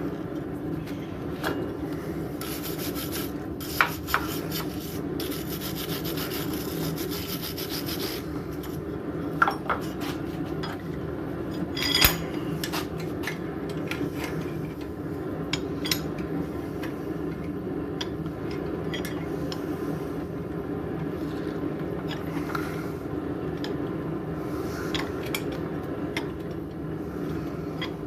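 Workshop metalwork: rubbing and rasping strokes over a steady low drone, with a few sharp metallic clicks, the loudest about twelve seconds in.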